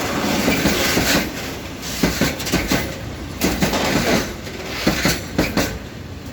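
Freight train wagons rolling past, their wheels clattering over rail joints in a quick, uneven series of knocks over a steady rumble.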